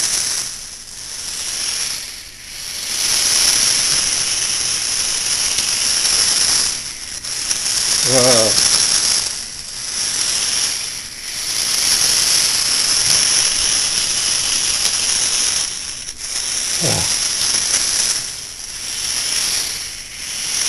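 Small electric drive motors of a hobby robot whirring as it drives, with a steady high whine and hiss. The sound swells and drops back every couple of seconds as the robot stops, turns and sets off again.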